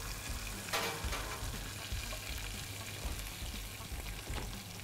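Hot butter sizzling steadily in a frying pan after searing a beef fillet, with a brief louder flare of sizzle just under a second in.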